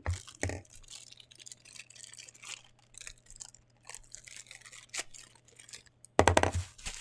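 Packaging being handled and opened: a run of rustling, scraping and crinkling strokes, with one louder burst of noise about six seconds in.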